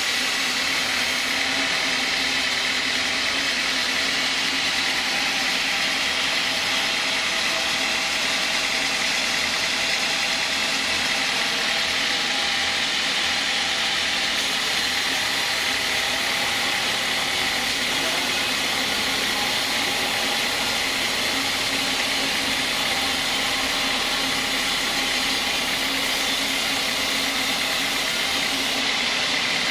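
Band sawmill running steadily, its blade ripping lengthwise through a large log.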